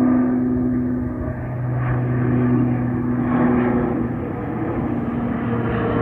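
Bombardier Dash 8 Q400 turboprop airliner climbing out after takeoff: a steady propeller drone with a few held humming tones, a lower one joining about a second in.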